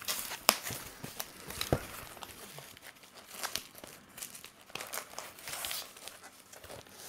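Packing tape being lifted and torn from a cardboard shipping box, with irregular crinkling and scraping of the packaging.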